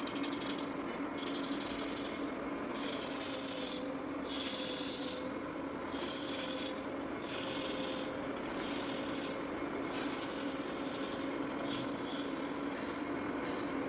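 Lathe running with a steady hum while a rasping, scraping sound is worked against the spinning stainless steel pump shaft. The scraping swells and fades in regular strokes about every second and a bit.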